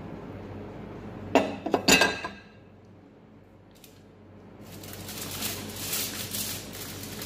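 A ceramic plate clinks several times as it is set down, about a second and a half in. From a little past halfway, aluminium foil crinkles and rustles as the chicken on it is handled.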